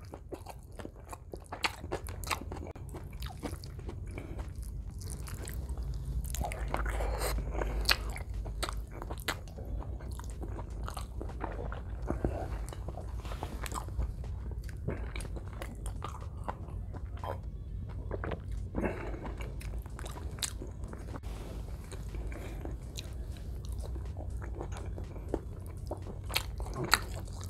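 Close-miked chewing and biting of a man eating rice with beefsteak and bopis by hand: steady wet chewing broken by frequent sharp mouth clicks and crunches.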